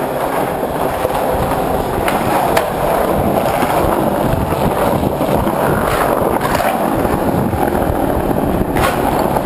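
Skateboard wheels rolling steadily over a car-park floor, a continuous loud rumble with a few sharp clacks.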